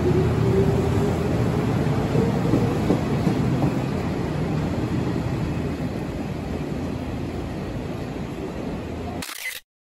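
Nishitetsu commuter train pulling away from the platform and gathering speed: a whine rising in pitch over the first few seconds over the rumble of the wheels on the rails, slowly fading as it leaves. The sound cuts off abruptly near the end.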